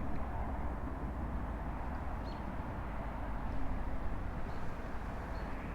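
Wind buffeting the microphone: a steady low rumble with no speech over it, with a few faint, short high chirps now and then.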